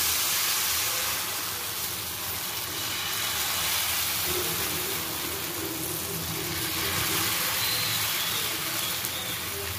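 Maida-and-onion dosa batter sizzling steadily on a hot flat pan as it is poured and spreads out.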